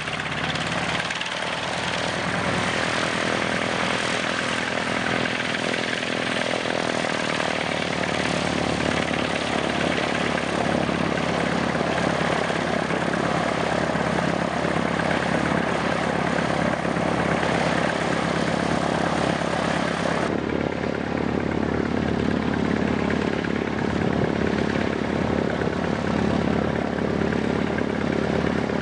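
Radial piston engine of a propeller-driven trainer aircraft running steadily as it taxies, a continuous propeller drone. About twenty seconds in, the sound changes suddenly to a duller, lower engine drone.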